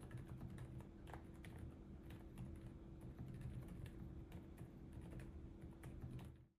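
Typing on a Lofree Flow Lite low-profile mechanical keyboard fitted with Hades silent linear switches: a run of very quiet, soft keystrokes over a faint low hum, cutting off just before the end.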